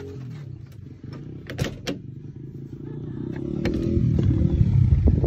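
Camper door latch and screen door clicking a couple of times as the door is opened, followed by a low rumble that swells over the last two seconds.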